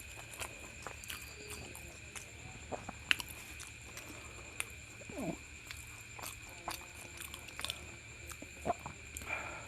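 Close-up chewing and eating mouth sounds as luchi with spicy egg masala is eaten: scattered wet clicks and smacks at an irregular pace. A steady faint high-pitched whine and a low hum run underneath.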